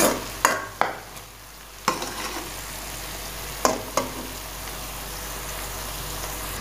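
Sliced onions and garlic paste sizzling steadily in hot oil in a metal kadai, with a steel spoon knocking and scraping against the pan six times in the first four seconds as it stirs.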